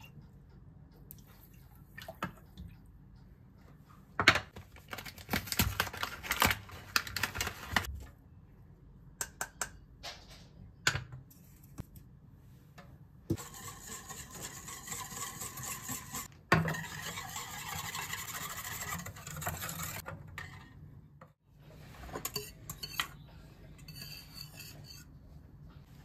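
Wire whisk beating cocoa powder and milk in a small stainless steel saucepan, the metal wires scraping and clinking against the pan for several seconds. Scattered knocks and clinks of the measuring cups and pan come before and after.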